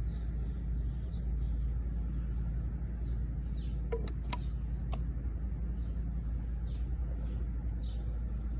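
Outdoor ambience: a steady low rumble with faint, scattered bird chirps, and a few sharp clicks about four to five seconds in.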